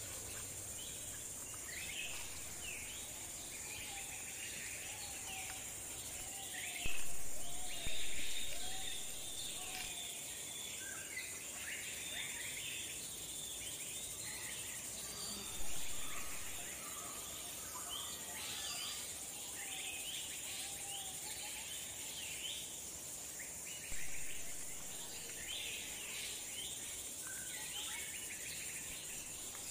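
Birds chirping over a steady high insect drone, with four sharp chops of a knife on a wooden board: two close together about a quarter of the way in, one near the middle and one about four-fifths of the way in.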